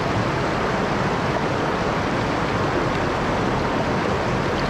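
Steady rush of river water spilling over a low weir and flowing past.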